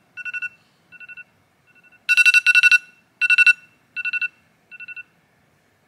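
iPhone alarm ringing: short clusters of rapid electronic beeps on two steady pitches, repeating about every three-quarters of a second. It is loudest from about two seconds in and softer near the end.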